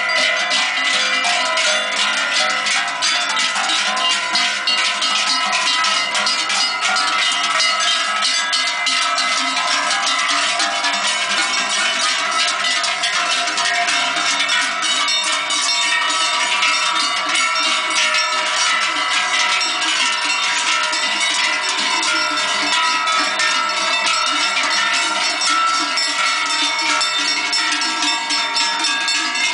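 Many large cowbells worn by a passing herd of cattle clanging together without a break, a dense jangle of overlapping bell tones.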